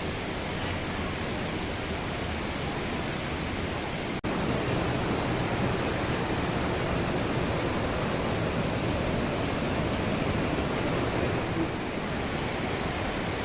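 River water rushing, a steady even noise with no break except a momentary dropout about four seconds in, after which it is slightly louder.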